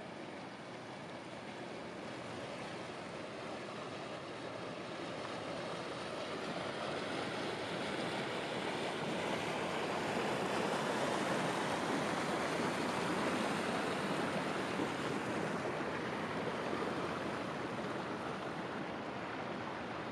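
Rushing water, swelling to its loudest around the middle and easing off toward the end.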